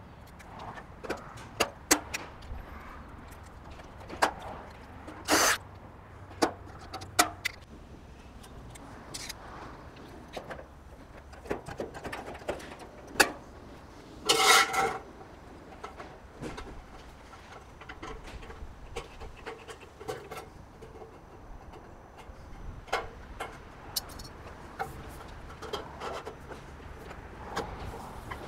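Steel barge capping flashing being handled and fitted over a roof's barge board: scattered light clicks and knocks, with two longer rattles about five seconds in and about halfway through.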